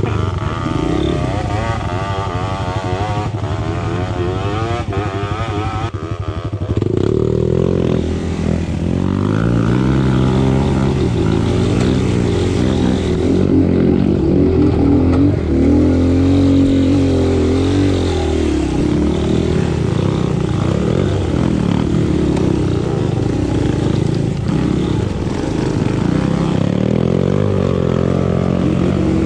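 A motorcycle engine running, its pitch rising and falling as it speeds up and slows down.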